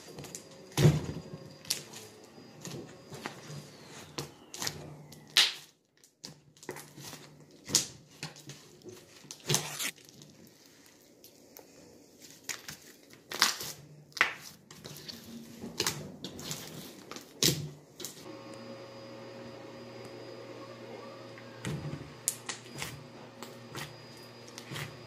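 A large batch of thick white slime being kneaded, pressed and stretched by hand, giving irregular wet clicks, pops and squishes.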